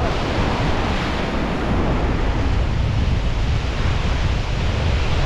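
Steady wind buffeting the microphone, with a heavy low rumble, over the wash of surf breaking against the rocks below. It starts abruptly and holds at one level.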